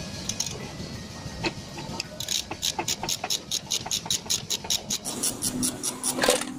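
Ratchet wrench clicking rapidly and evenly, about five clicks a second, as it backs out an ECU mounting bolt, over a steady low rumble.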